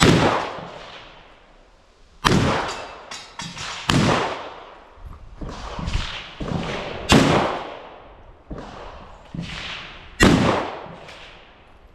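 Handgun shots fired at irregular spacing while the shooter moves, a dozen or more, some in quick pairs. Each is a sharp crack with an echoing tail.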